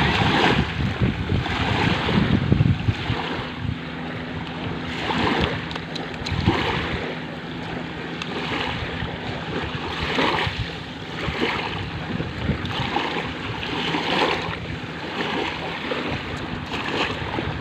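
Sea waves washing in and out on a beach, swelling and fading every second or so, with wind buffeting the microphone.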